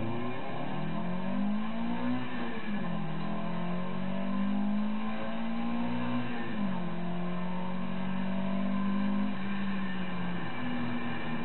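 Toyota 2T-G twin-cam four-cylinder engine in a Starlet race car, heard from inside, pulling hard through the gears: the pitch climbs and then drops sharply at two upshifts, about two and a half and seven seconds in. Near the end the pitch steps up again.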